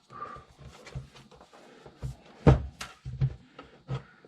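Metal case of an ATX computer power supply being handled and turned over on a workbench: a string of uneven knocks and clunks, the loudest about halfway through, over light handling rustle.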